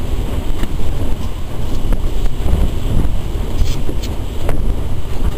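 Wind buffeting the microphone, a loud uneven low rumble, with a few faint clicks over it.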